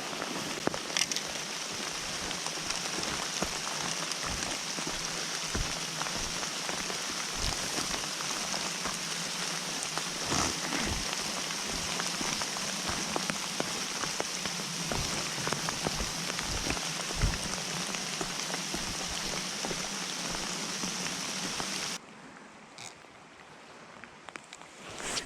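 Steady rain falling, with many raindrops tapping close by. About 22 seconds in it drops away suddenly to a quieter background with only a few scattered taps.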